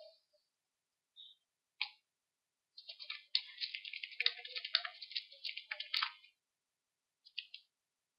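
Typing on a computer keyboard: a couple of single keystrokes, then a quick run of key clicks lasting about three seconds, and a few more near the end.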